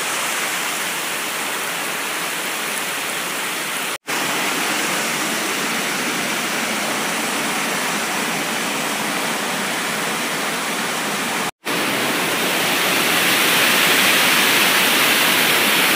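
Rushing water of a small waterfall pouring over rocks, a loud steady wash of noise. It cuts out for a moment twice and grows louder over the last few seconds.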